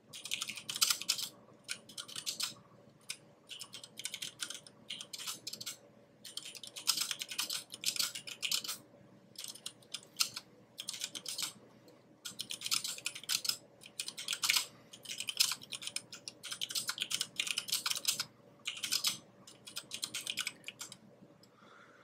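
Typing on a JD40 40% mechanical keyboard with Cherry MX Clear switches: rapid key presses in runs of one to two seconds, broken by short pauses.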